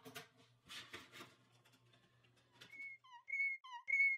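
Faint clicking and rattling, then from about three seconds in a repeated two-note whistle. A high held note alternates with a lower, bending note, about every half second.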